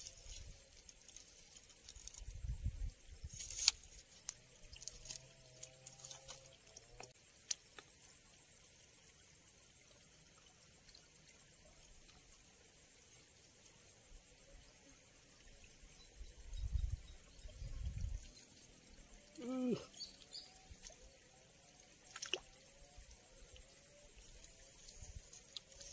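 Steady high-pitched insect trilling in a rural outdoor setting, growing stronger after a few seconds. Scattered dull low bumps, a sharp click about four seconds in and a short wavering call near twenty seconds in stand out from it.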